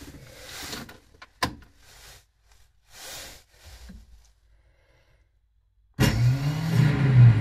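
A sharp click about a second and a half in, then about six seconds in the Piaggio Ape 50's small two-stroke engine is turned over on its electric starter: a sudden, loud mechanical whirr with a wavering low pitch that carries on to the end.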